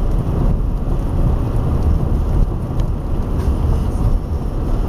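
Steady low rumble of a moving car's engine and tyres on a wet road, heard from inside the cabin.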